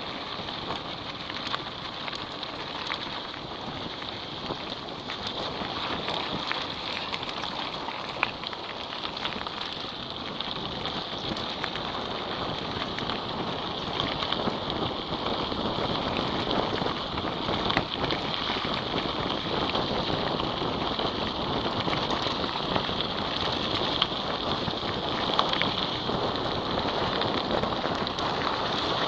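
Mountain bike rolling fast down a loose dirt-and-gravel track: a steady crunch and hiss from the tyres, dotted with many small clicks and rattles from the bike, growing a little louder over the second half.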